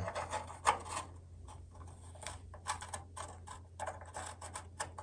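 Irregular light metallic clicks and scrapes as a U-nut is worked onto a Ford Mustang II's sheet-metal fender mounting bracket, over a steady low hum.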